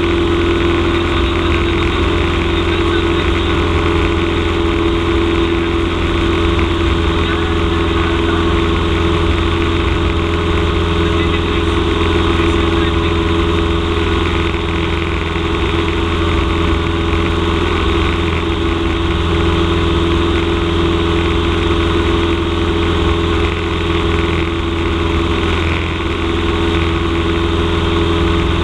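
Cessna 172M's four-cylinder Lycoming engine and propeller droning steadily in cruise flight, heard from inside the cockpit.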